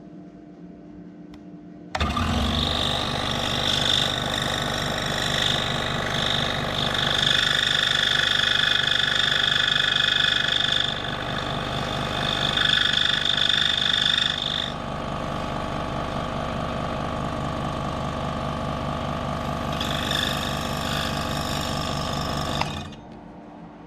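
DeWalt DW788 scroll saw switched on about two seconds in, its motor and reciprocating blade running with a fast steady buzz while the blade cuts a small piece of wood. A higher cutting sound comes and goes over the run, and the saw is switched off shortly before the end.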